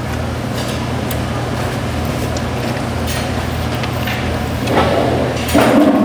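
A steady low mechanical hum, with a short burst of louder noise near the end.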